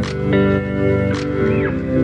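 Background instrumental music with a steady beat: sustained chords and a sharp percussive hit about once a second.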